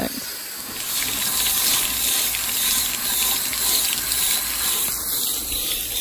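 Garden hose spraying water onto a Gleaner combine's air-conditioner condenser to clean it out: a steady hiss and splash of water that strengthens about a second in.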